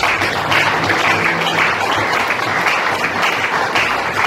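Audience applauding: a dense, steady patter of many people clapping, which sets in right after the closing thanks.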